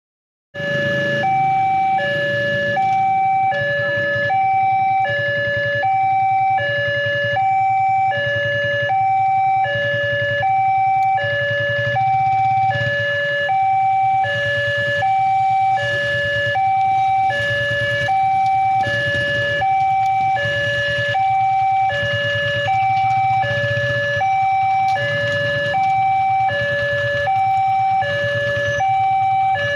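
Railway level-crossing warning alarm sounding from the loudspeaker on the crossing post: an electronic two-tone high–low alarm repeating about once every one and a half seconds, starting about half a second in, over a low rumble.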